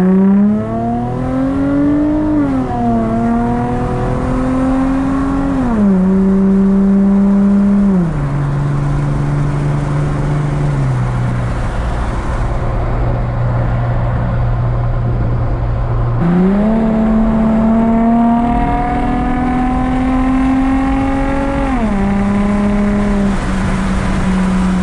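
Infiniti G35's 3.5-litre V6 heard from inside the cabin, pulling through the gears with the engine note climbing and then stepping down at each upshift before settling to a steady cruise. About 16 seconds in the revs jump and it pulls again, rising for several seconds before stepping down twice near the end.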